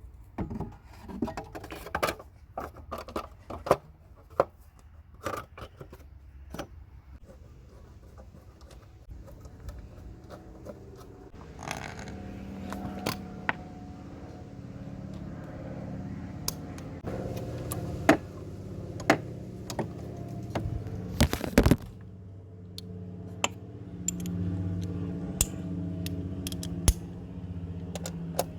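Metal clinks, taps and scrapes of hand tools and the sheet-metal heat shield being refitted under a car. From about halfway in, a steady low vehicle engine hum runs beneath the clinks.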